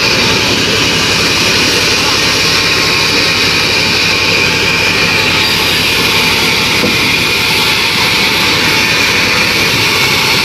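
Vertical band sawmill running: a loud, steady machine noise with a strong high hiss and a fast low rumble, with no pauses.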